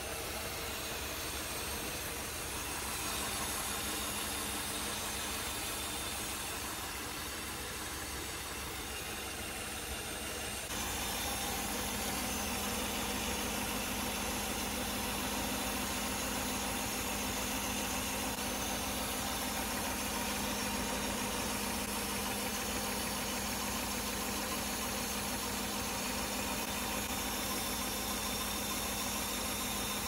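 Mercedes 420SEL's 4.2-litre V8 idling steadily, as the owner troubleshoots a misfire on this KE-Jetronic engine. The idle is a little louder, with a steadier hum, from about eleven seconds in.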